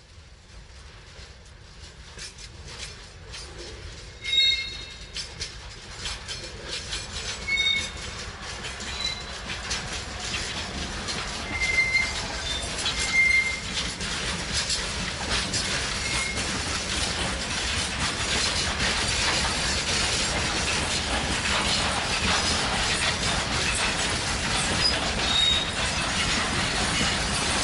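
A long rake of broad-gauge freight wagons rolling past during shunting. The wheels click over the rail joints, and flanges give a few short, high squeals. The rolling noise grows steadily louder.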